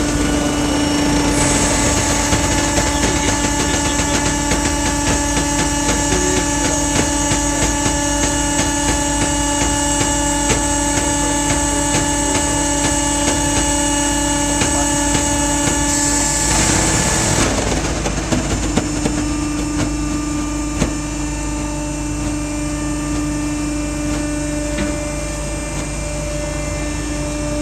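Mill size baler's hydraulic power pack running, a steady machine hum and whine. The note changes about seventeen seconds in, with a short rushing noise.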